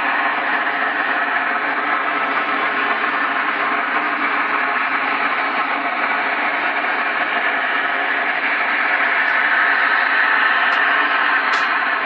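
Unexplained night-time droning noise, one of the 'strange noises' of the recording: a loud, steady drone of many layered tones over a hiss, not changing in pitch or level. A few short ticks come near the end.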